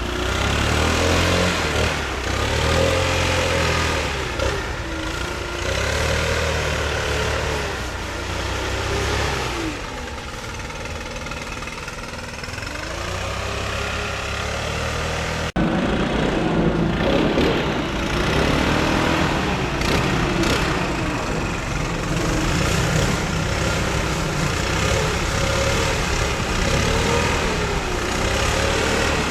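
A small engine running steadily, its pitch drifting slowly up and down; the sound breaks off abruptly about halfway through and carries on straight after.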